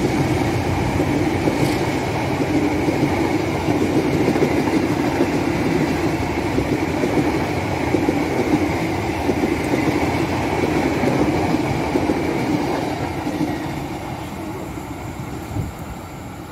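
A passenger train's coaches rolling past close by: a loud, steady rumble of steel wheels on rail that fades over the last few seconds as the end of the train goes by.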